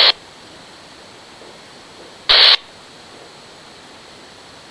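RadioShack PRO-97 police scanner between transmissions: a faint steady hiss, broken about two seconds in by one short, loud burst of radio static as the squelch opens on a brief key-up with no voice.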